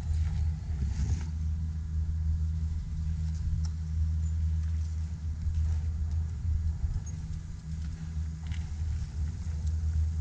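Steady low rumble throughout, with a few faint clicks.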